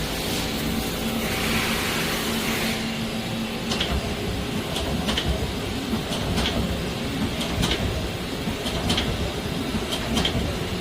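Doosan Puma MX2600ST CNC mill-turn lathe running with a steady hum and a hiss of air for the first few seconds, then its tool changer indexing with a series of sharp clicks, mostly in pairs, as the tool number is changed.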